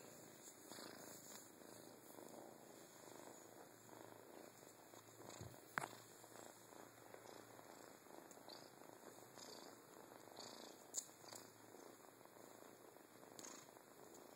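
Kitten purring faintly and steadily, with two sharp clicks, about six and eleven seconds in.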